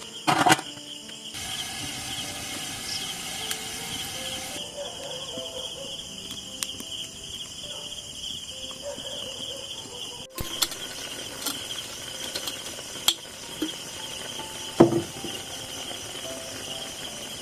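Insects chirping in a steady, high, continuous drone, with scattered clicks and a single louder knock about fifteen seconds in.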